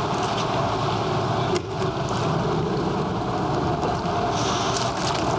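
Steady road traffic noise from cars crossing a bridge overhead, with a short lull about one and a half seconds in.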